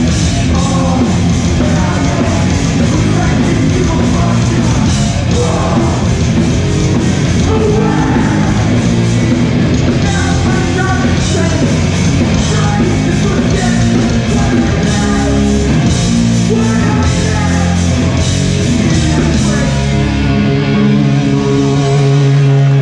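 Live hardcore punk band playing at full volume, with distorted guitars, bass, pounding drums and shouted vocals. Near the end the drums drop away and a held chord rings out as the song finishes.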